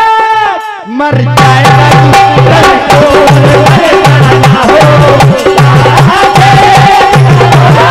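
Live bhajan music: a harmonium holds a chord, then about a second in a dholak breaks into a fast, driving beat with sharp clattering hand percussion over the harmonium's melody.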